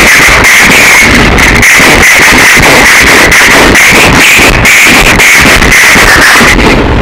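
Harsh, heavily distorted noise soundtrack, played at full loudness throughout: a dense hiss with a steady high band and rapid crackling pulses.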